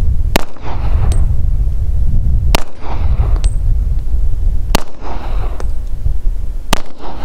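Rock Island .40 pistol fired four times, about two seconds apart, each shot followed by a short echo. A steady low rumble of wind on the microphone runs underneath.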